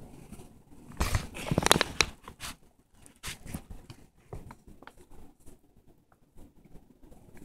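Praying mantis chewing through a Dubia roach's hard shell, close to the microphone: a dense run of crunching clicks about a second in, then scattered single crunches.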